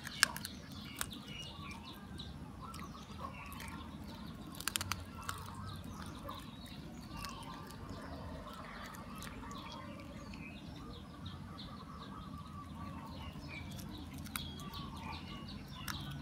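Cat chewing and crunching on a chicken bone, with scattered sharp crunches, the loudest just after the start and a cluster about five seconds in. Birds chirp faintly in the background.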